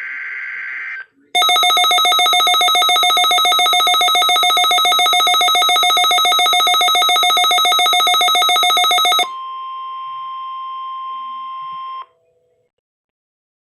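Emergency alert signalling on a Midland WR400 weather radio receiving the NWS weekly test. A buzzing SAME digital header burst ends about a second in. After a short pause the radio sounds a loud, rapidly pulsing alert alarm for about eight seconds. It then gives way to the broadcast's steady 1050 Hz warning alarm tone, which cuts off after about three seconds.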